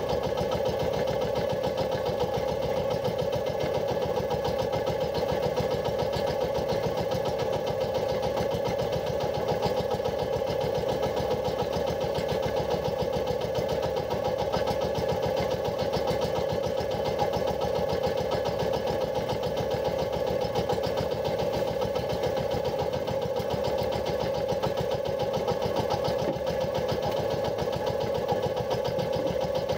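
Outrigger fishing boat's engine running steadily at an even speed, with a fast, regular chug.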